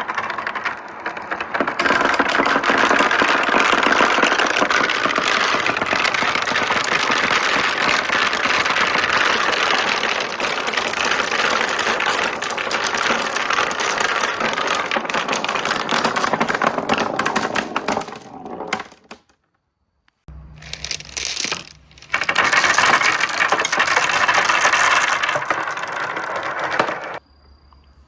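Marbles rolling and clattering down the tracks of a marble run, a dense rattle of small clicks. The rattle thins out and stops about two-thirds of the way through, then resumes after a short pause and stops again about a second before the end.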